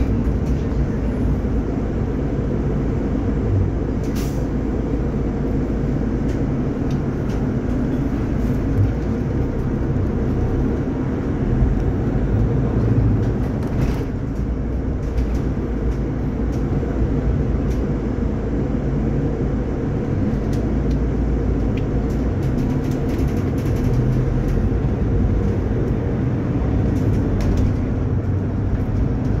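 Cabin noise of a Solaris Urbino 12 IV Hybrid city bus under way: a steady low rumble from the drivetrain and road, with a few short clicks or rattles.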